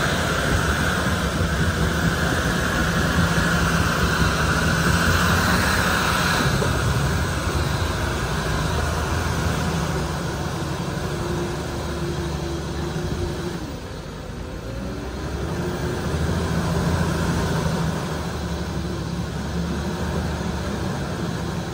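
A John Deere tractor's diesel engine runs under load as it ploughs through deep floodwater, with water rushing and splashing around its wheels. The rush of water is loudest in the first few seconds. About two-thirds of the way through, the engine note drops, then rises again.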